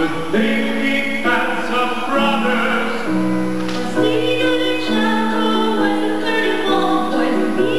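Song from a stage musical: singing with a female voice and chorus over an accompaniment of held chords and a bass line that changes note about once a second.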